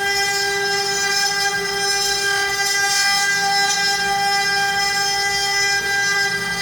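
CNC router spindle running at speed, a steady high whine with a hiss over it, as it carves solid wood.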